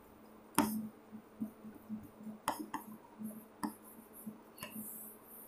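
Marker on a whiteboard while writing: faint scuffing strokes and a handful of sharp clicks as the tip taps the board.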